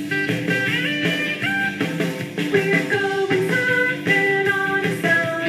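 Upbeat surf-rock style song playing, with guitar and a rock band backing.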